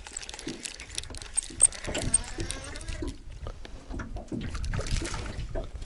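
Light splashing and trickling water with irregular small clicks and knocks, as a hooked small crucian carp is played and reeled in on a fishing rod.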